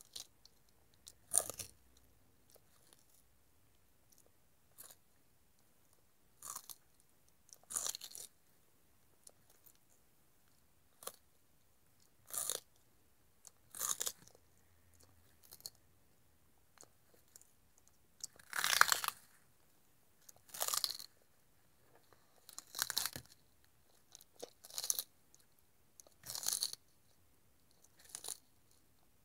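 A tortoise biting and chewing celery stalks: separate crisp crunches every second or two, with the loudest about two-thirds of the way through.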